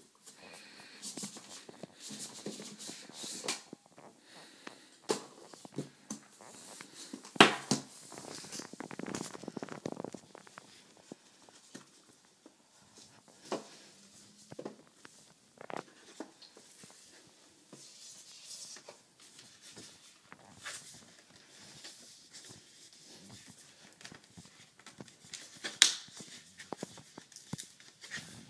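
Rigid cardboard headphone box being handled and opened: scattered taps, scrapes and rustles of the box and its lid, with a sharp knock about a quarter of the way in and another near the end.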